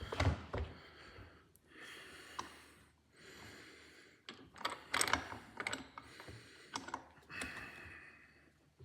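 Light metal clicks and short scraping sounds as a slotted ABS reluctor ring is shifted and repositioned on a drive shaft's CV joint.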